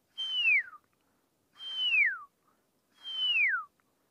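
A person whistling an owl call: three clear, breathy notes, each sliding down in pitch, about one every second and a half, imitating the owl to draw it in.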